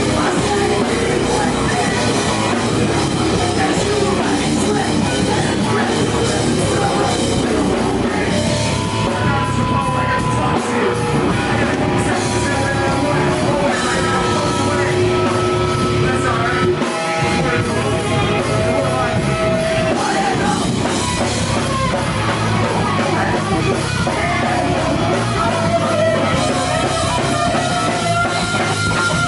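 Live rock band playing loud heavy rock, with electric guitar, drum kit and a vocalist singing into a microphone.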